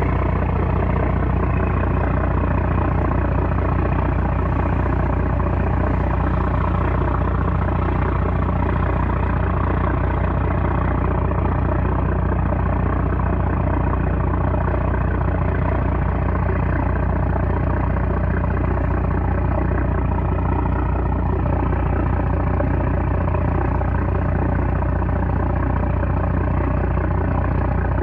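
A small trawler's 330-horsepower engine running steadily, a loud, even low drone.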